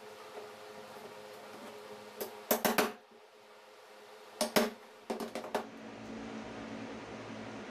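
A hammer striking a wood chisel driven into a plywood block: a quick run of about three blows two and a half seconds in, two more at about four and a half seconds, then lighter taps. After that a steady low hum and hiss takes over.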